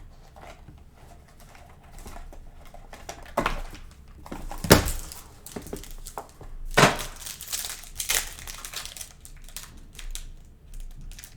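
Plastic wrapping crinkling and tearing as a sealed box of trading cards is opened and handled. It comes in several short rustling bursts, the loudest about five seconds in.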